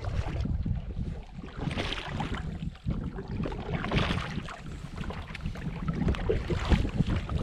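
Canoe paddle strokes splashing through lake water, about two seconds apart, over a steady wind rumble on the microphone.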